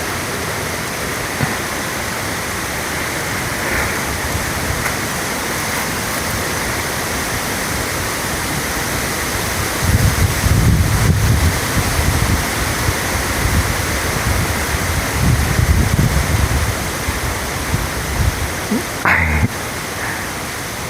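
Water rushing steadily, as from a stream or small waterfall. From about halfway through, low rumbles come and go on the microphone for several seconds.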